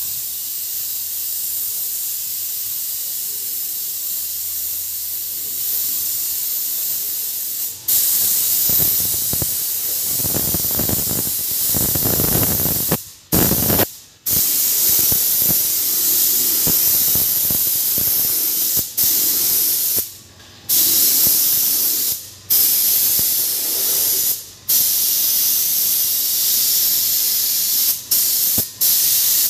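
Compressed-air paint spray gun spraying: a loud steady hiss, cut off briefly several times as the trigger is released and pulled again.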